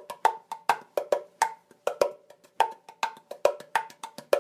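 A wooden percussion instrument tapped in a quick, even rhythm of about four to five strikes a second, moving between a higher and a lower ringing tone.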